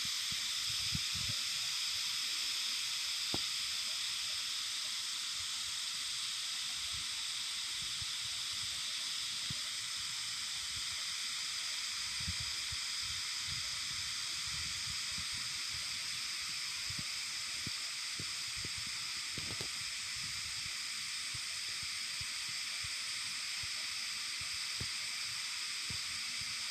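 A dense chorus of cicadas singing together in one continuous, even, high-pitched drone with no pauses, described as like the earth rumbling.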